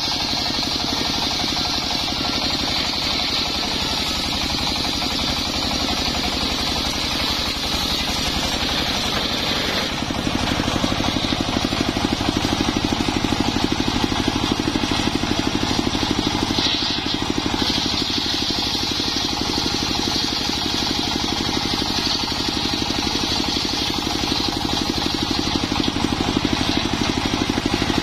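Belt-driven circular saw bench running and ripping a mahogany log lengthwise: a steady engine note under the hiss of the big toothed blade cutting through the wood. The sound grows louder about ten seconds in, with a lower hum added.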